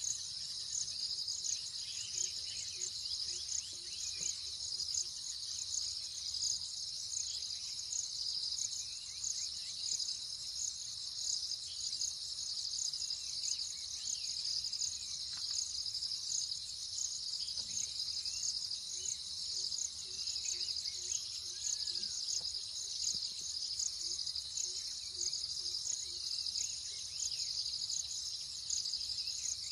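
Dense, steady insect chorus, a high pulsing trill, with faint scattered bird chirps and short runs of a low repeated call.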